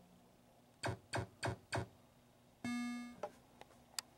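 Bally Elvira and the Party Monsters pinball machine powering up: four quick clicks about four a second, then a short buzzy electronic tone from the game's sound system that fades within about half a second, followed by a few faint clicks. The game is booting.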